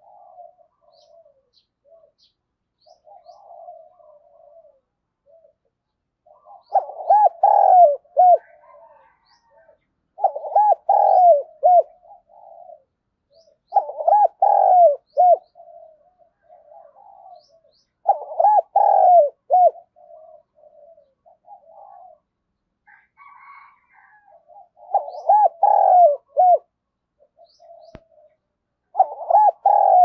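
Spotted dove cooing: six loud phrases of several rising-and-falling coos each, a few seconds apart, with soft low cooing between them.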